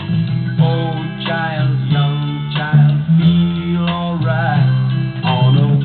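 1960s rock single playing from a 45 rpm record on a record changer: a guitar-led stretch of the song with no singing, over a steady bass line.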